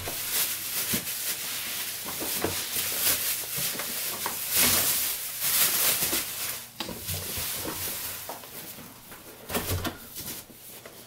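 Bubble wrap rustling and crinkling as it is pulled off and away from a cardboard box, in many quick irregular crackles.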